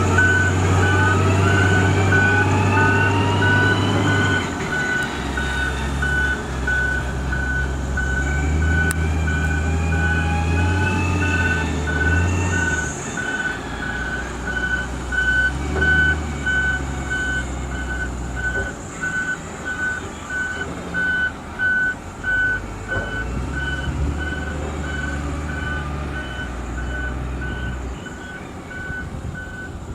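A heavy machine's reversing alarm beeps evenly and continuously over the low running of a diesel engine, and the beeping fades near the end. A rising whine sweeps up in the first few seconds as the engine works.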